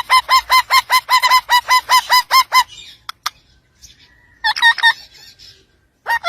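A parrot calling in a fast run of loud, shrill, repeated notes, about five a second, for two and a half seconds. After a pause come a short burst of three more calls and one more near the end.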